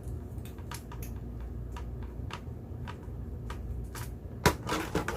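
Irregular light clicks and taps of plastic parts being handled as a streaming microphone kit is assembled, with a louder knock about four and a half seconds in, over a low steady hum.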